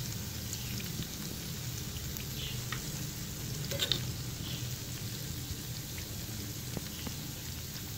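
Aloo pakoras deep-frying in hot oil in a nonstick pan, a steady sizzle, with a few light clicks of metal tongs as the fritters are lifted out. The loudest click comes about four seconds in.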